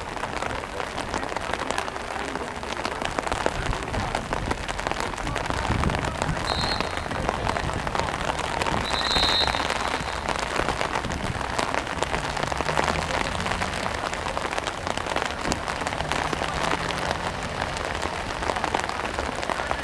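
Steady patter of rain throughout, with two short, high referee's whistle blasts about six and nine seconds in.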